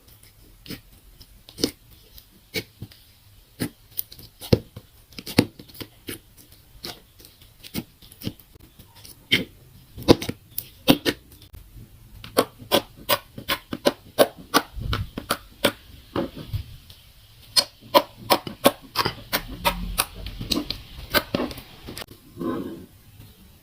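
Pink slime with gold glitter being kneaded and folded by hand, giving sharp, irregular pops and clicks. The clicks come sparsely at first and much faster in the second half.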